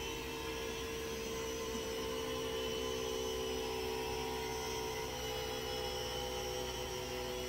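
Ryobi 18V cordless tire inflator's compressor running steadily as it pumps a car tyre up, the pressure climbing through the 20s PSI.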